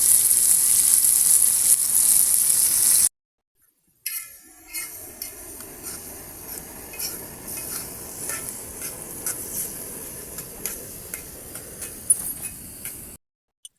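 Food sizzling and crackling as it cooks over a fire: a loud steady sizzling hiss for about three seconds, then, after a short break, a quieter stretch of scattered crackles and pops.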